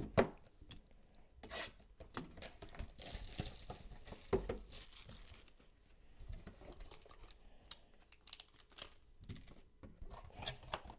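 Hands opening a cardboard trading-card box (Panini Contenders Optic): cardboard and wrapper rustling, tearing and crinkling, with scattered soft taps and knocks.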